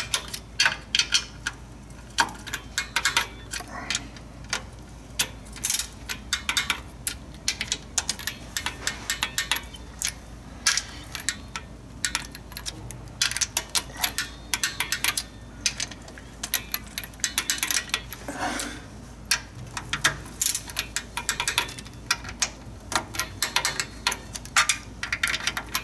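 Torque wrench ratcheting and clicking as it tightens the transmission pan bolts to about 110 inch-pounds in turn, with clusters of sharp metallic clicks from the ratchet and socket.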